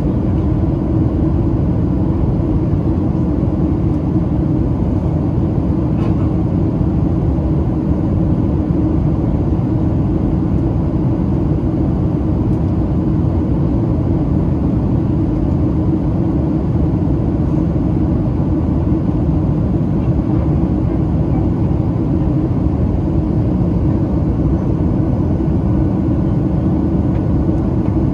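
Steady cabin noise inside a Boeing 737-700 on approach: a constant low rumble of airflow and the twin CFM56-7B turbofans, with a faint steady whine above it.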